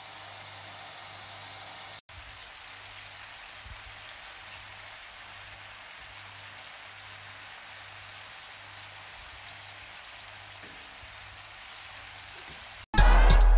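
Steady, even hissing noise, broken by an abrupt cut about two seconds in and then continuing. Loud music with a drum beat starts suddenly near the end.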